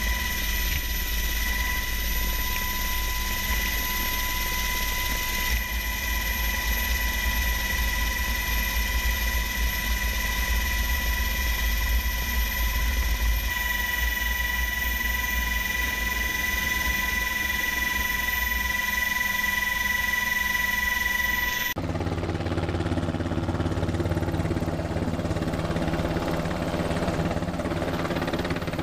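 Sikorsky H-60 helicopter heard from inside the cabin in flight: a steady deep rumble of rotor and engines with two steady high-pitched whines over it. About three-quarters of the way in it changes abruptly to an H-60 heard from outside on a ship's flight deck as it approaches to land, a lower, rhythmic rotor and engine sound.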